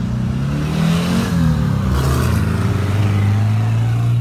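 Car engines going past, with an engine note that rises and falls about a second in, then settles into a steady low hum.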